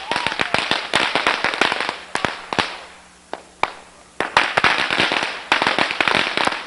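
Strings of firecrackers going off in rapid runs of sharp cracks, easing off about three seconds in, then a second dense run.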